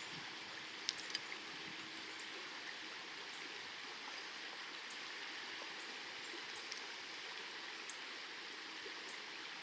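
Steady rush of flowing river water, with a few faint light clicks about a second in and a couple more later on.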